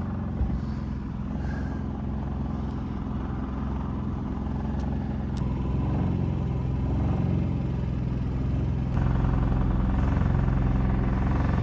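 An engine running steadily with a low hum; its low end grows stronger about nine seconds in.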